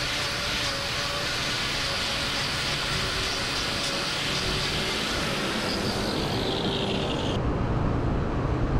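Angle grinder with a hoof-trimming disc running against a cow's hoof: a steady hiss with a faint motor whine that dips slightly. About seven seconds in, the high hiss cuts off abruptly, leaving a lower rumble.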